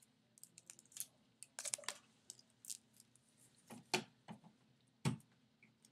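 Faint scattered clicks, knocks and rustles of handling as an electric nail drill's cord is plugged in and the drill and its controller are moved about, the loudest knocks about four and five seconds in; the drill's motor is not running.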